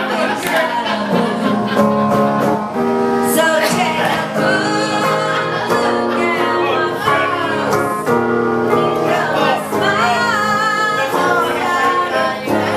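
A woman singing into a microphone, accompanying herself on electric guitar.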